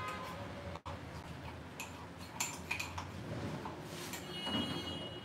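Metal spoon stirring and clinking in a ceramic mug, a few light clinks, with a short ringing tone near the end.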